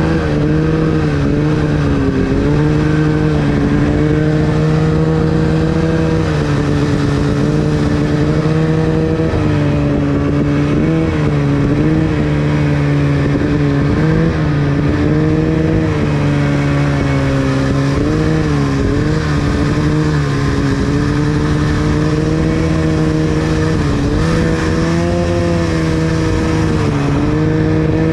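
Snowmobile's two-stroke engine running at a steady high speed while riding, its pitch dipping and picking back up briefly every few seconds as the throttle is eased and reapplied, over a constant rush of track and snow noise.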